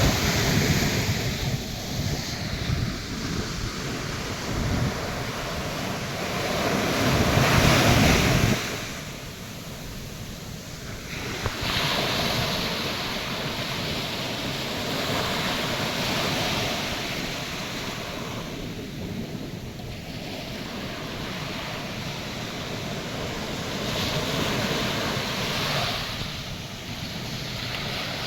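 Atlantic Ocean surf breaking and washing up the beach, the rush of water swelling and easing every few seconds. Wind buffets the microphone with a low rumble through the first third, cutting off abruptly about eight seconds in.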